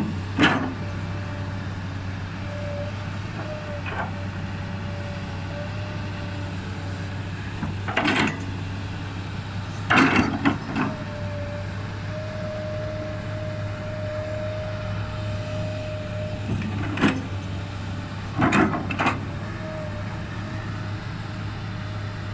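Komatsu PC200 hydraulic excavator's diesel engine running steadily, with a hydraulic whine that comes and goes as the arm and bucket move. Several sharp knocks and clanks as the bucket works the dirt, loudest about ten seconds in and again near nineteen seconds.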